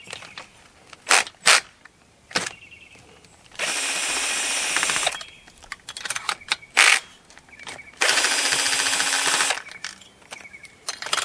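A power drill/driver run twice, each time for about a second and a half, with short clicks and knocks of tool handling between; it is plausibly unscrewing the chainsaw's cylinder fasteners to take the cylinder back off.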